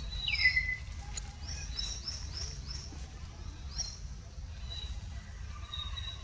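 Birds chirping: one falling call near the start, the loudest, then a quick run of four short rising chirps a little later and another near four seconds, over a steady low rumble.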